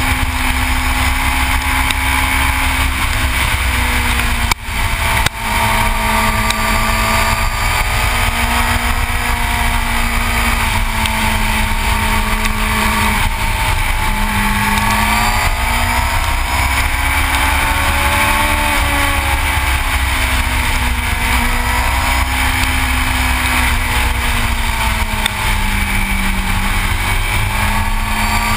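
Yamaha R6's inline-four engine running at road speed, its pitch rising and falling gently with the throttle, under heavy wind rumble on the microphone. The sound drops out briefly twice about four and a half seconds in.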